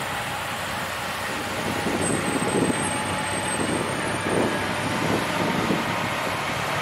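Steady city street noise of heavy trucks and traffic running, from a snow-removal crew with a dump truck and snowblower working up the street. A few soft low thuds come through in the second half.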